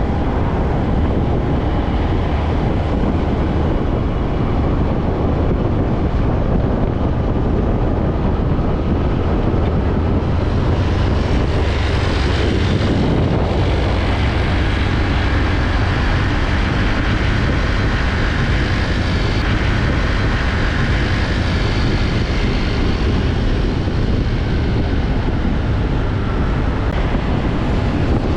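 Road traffic of heavy trucks driving past: steady low engine rumble and tyre noise, swelling as one passes close about twelve seconds in.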